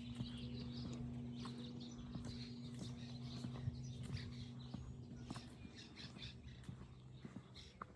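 Faint outdoor ambience: birds chirping and scattered light footsteps over a steady low hum, part of which fades out about five seconds in.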